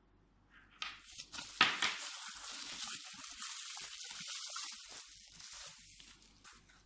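Plastic bubble wrap crinkling and crackling as a flashlight is slid out of its bubble-wrap sleeve, starting about a second in with a sharp crackle soon after, then a steady rustle that fades near the end.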